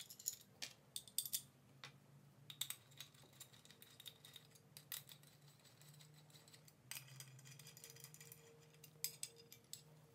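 Faint, irregular metallic clicks and taps as steel M6 screws and a hex key knock against an aluminium mounting plate while the screws are set in and turned, over a faint steady hum.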